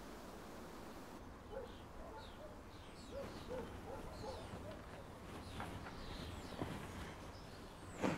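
Quiet outdoor ambience with birds chirping and calling, and one short sharp knock near the end.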